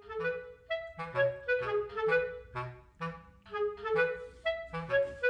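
Background music: a light, bouncy melody on a clarinet-like woodwind over a simple accompaniment, repeating a short phrase about every two seconds.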